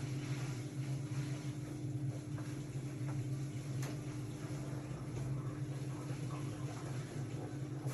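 Hotpoint-Ariston RSG 825 J washing machine running with a steady low hum and a fainter steady higher tone, with faint scattered clicks.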